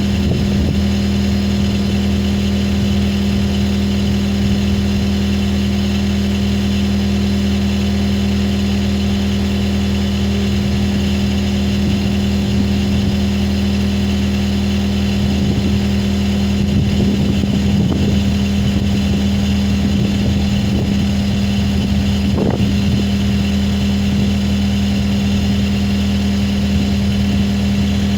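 Skid steer engine idling steadily at an even pitch, with a few faint knocks in the second half.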